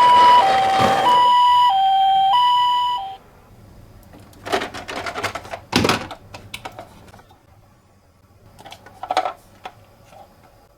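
Toy ambulance minicar's electronic two-tone hi-lo siren, the Japanese ambulance "pee-po" pattern, switching pitch about every half second; it cuts off suddenly about three seconds in. After that come bursts of light plastic clattering and clicking from the toy cars.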